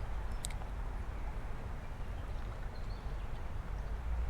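Steady rush of running creek water over a low rumble, with a light click about half a second in.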